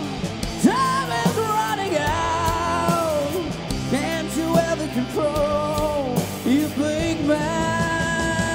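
Live rock band playing: drums, bass and electric guitar under a lead line that bends and wavers, settling into one long held note in the last second or so.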